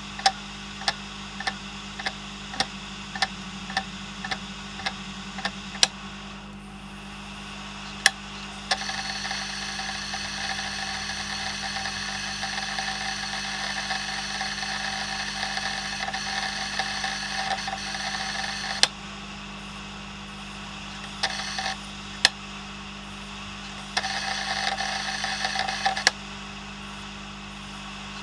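Opened-up Western Digital Green 500 GB hard drive running in a USB docking station, its heads clicking about twice a second, then a loud click and a steady whirring buzz for about ten seconds that stops with a click; a few more clicks and a second short whirr follow near the end. It is the failed drive hunting, repeatedly trying and failing to read, with the computer seeming to connect and disconnect it.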